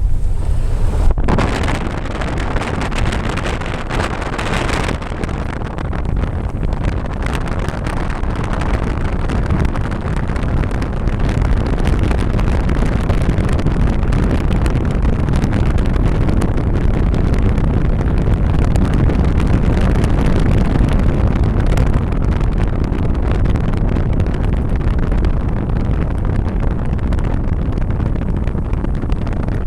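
Steady rumble of a car driving, with wind buffeting the microphone.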